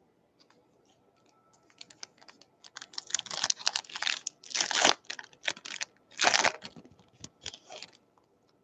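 Plastic wrapper of a baseball card pack being torn open and crinkled: a run of crackly rustles starting about two seconds in, loudest around the middle, fading out near the end.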